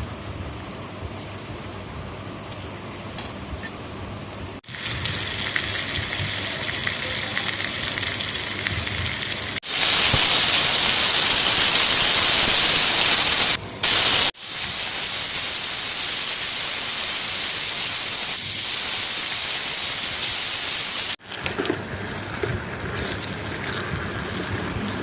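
A steady hiss, heard in several separate cuts that start and stop abruptly; it is loudest and brightest in the middle stretch, about ten to twenty-one seconds in.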